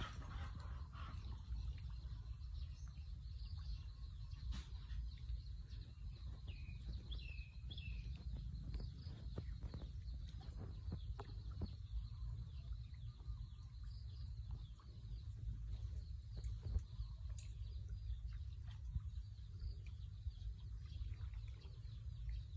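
Rural outdoor ambience: a steady low rumble of wind on the microphone, scattered small clicks, and a few short bird chirps about a third of the way in.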